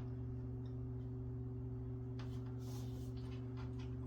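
Steady low hum in the background, with a few faint clicks and a brief rustle between two and three seconds in as a rubber-and-plastic window weather strip is pressed into place by hand.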